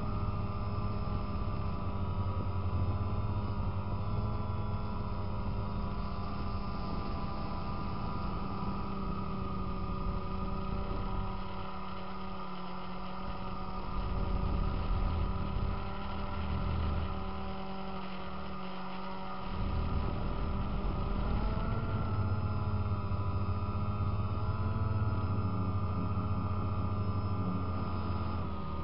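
DJI Phantom quadcopter's electric motors and propellers whining steadily in flight, heard from the camera on board. The pitch shifts a little with throttle changes about two-thirds of the way through and again near the end, and the low rumble under the whine drops away twice for a few seconds.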